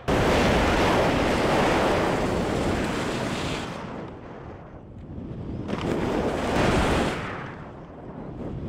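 Rushing hiss of skis sliding over snow, mixed with wind buffeting the camera microphone. It starts suddenly, fades about four seconds in, swells again, and fades near the end.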